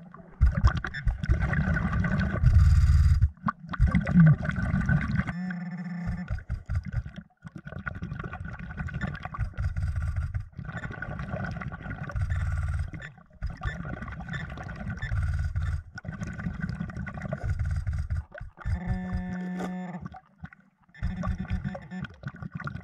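Muffled underwater sound from a camera in a waterproof housing: low rumbling water movement and handling noise that comes and goes as a diver digs in the sand and silt of the lake bottom, with a short buzzing tone near the end.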